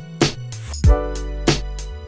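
Background music with a drum beat over held bass and chords.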